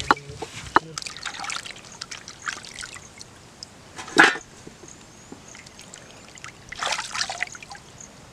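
Water trickling and splashing in irregular short bursts, with a louder splash about four seconds in and another around seven seconds.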